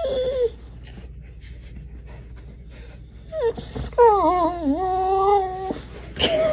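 A dog whining: a short falling whine at the start, a long wavering whine lasting nearly two seconds about four seconds in, and a brief whine near the end.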